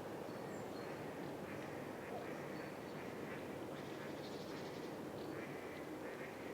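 A run of short, repeated bird calls over a steady background rush.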